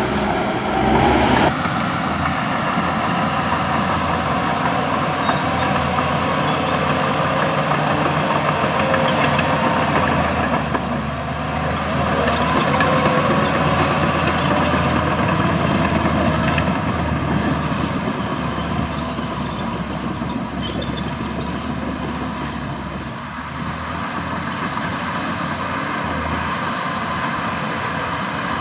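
Diesel engines of heavy earthmoving machinery, dump trucks and a bulldozer, running continuously, swelling and easing slightly in loudness.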